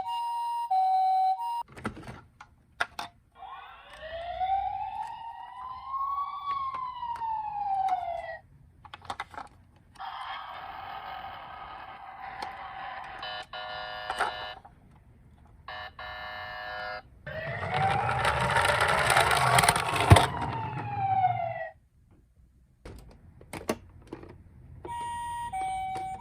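A series of toy ambulance siren sounds played one after another with short gaps and clicks between them: a hi-lo two-tone, a slow wail that rises and falls once, a steady electronic tone, another rising and falling wail with a low rumble under it, and the hi-lo two-tone again near the end.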